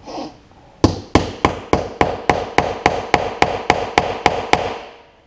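Hammer striking a metal snap-setting tool to set a snap fastener, about fourteen quick, even blows at roughly four a second, each with a short metallic ring.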